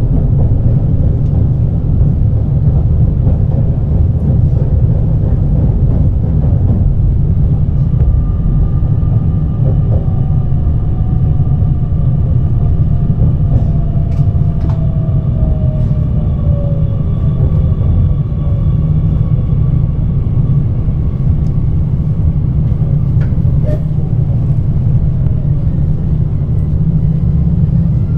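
Running sound of a JR Kyushu 817 series electric train heard from inside the carriage: a steady low rumble of wheels on rail. From about eight seconds in, a motor whine falls slowly in pitch as the train slows for its station stop.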